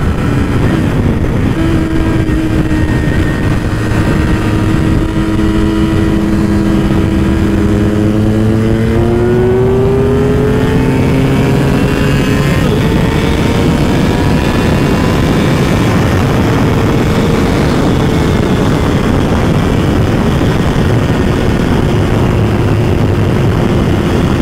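Yamaha R6 inline-four sportbike engine at motorway speed under heavy wind rush. The engine note holds steady, then rises over a few seconds about eight seconds in as the bike accelerates, and settles into a steady cruise.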